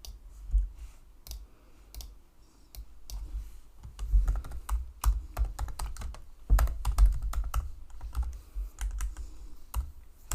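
Typing on a computer keyboard: irregular runs of key clicks, in bursts with short pauses, with a low thud under the heavier keystrokes.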